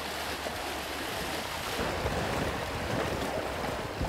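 Small lake waves washing against granite shore rocks, a steady wash of water with some wind on the microphone.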